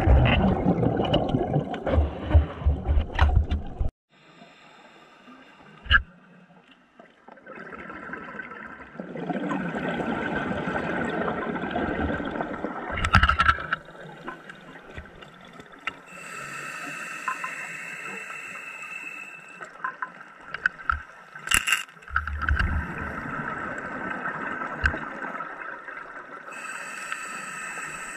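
Scuba regulator breathing heard underwater: three long bubbling exhalations, roughly ten seconds apart, with a steady whistling hiss of air drawn through the regulator in between.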